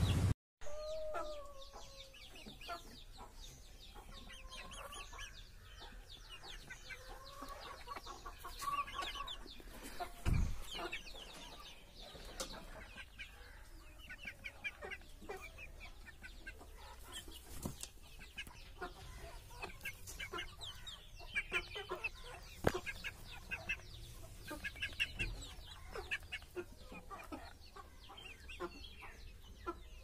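Aseel chickens calling with many short, repeated clucks and a few higher chirps. A dull thump about a third of the way through.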